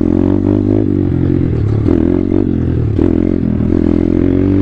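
2019 Thumpstar 140cc pit bike's single-cylinder four-stroke engine running on throttle during a wheelie. The revs hold fairly steady, with small rises and dips.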